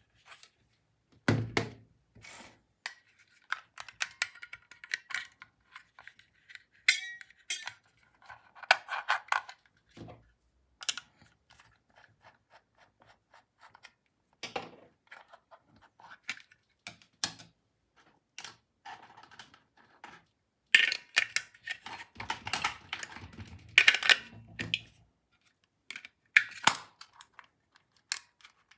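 Hard plastic toy parts clicking, tapping and knocking as they are handled and unpacked, with a few heavier thunks.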